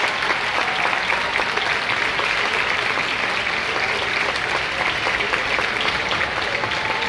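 Large stadium crowd applauding: a dense, steady clatter of clapping from the stands.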